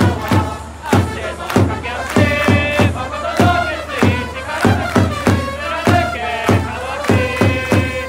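Yomiuri Giants cheering section: a crowd of fans chanting together to a steady bass-drum beat, with brass-like held notes over it twice.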